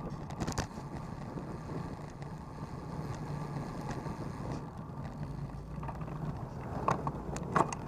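Street traffic heard from a bicycle: a steady low engine hum over road noise, with a couple of sharp clicks near the end.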